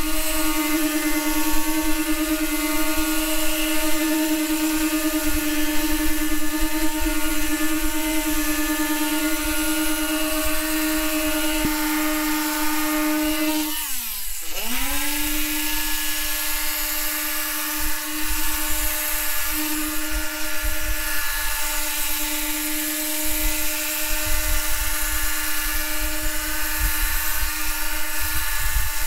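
Small electric random orbital sander running steadily against gelcoat, a high-pitched motor whine. About halfway through the pitch drops sharply and comes straight back up to speed.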